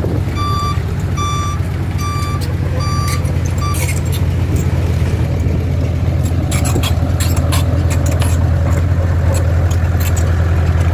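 A reversing alarm beeping about twice a second over the steady, deep rumble of a heavy diesel engine; the beeping stops about four seconds in. Irregular metallic clicks and clanks follow over the running engine.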